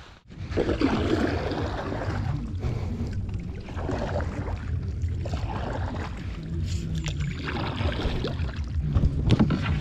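Water lapping and slopping against a small wooden country boat, with wind buffeting the microphone; a few sharp clicks near the end.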